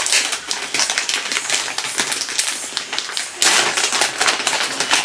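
Wig packaging being opened by hand: rapid crackling and crinkling of the wrapping, louder and denser for the last second and a half.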